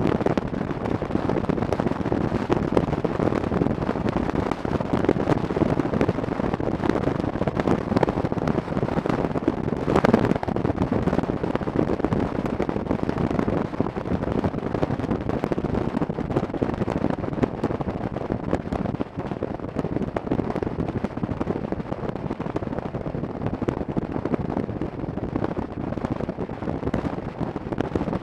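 Wind rushing and crackling on the microphone of a camera mounted on a moving motorcycle, mixed with road and engine noise at speed. One louder burst about ten seconds in.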